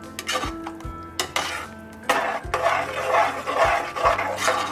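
A steel ladle stirring and scraping thick rice-and-lentil mash in an aluminium pressure cooker pot, with a few metal clicks in the first half and steadier scraping in the second half.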